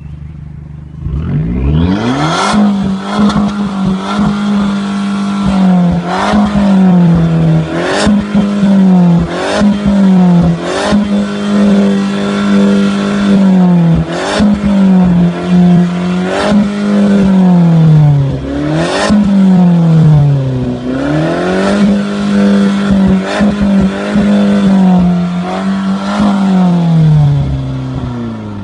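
Abarth 695 Edizione Maserati's turbocharged 1.4-litre four-cylinder engine revved hard over and over. The note climbs about a second in, is held high, then drops back before rising again, with sharp cracks from the exhaust between revs, and it falls away near the end.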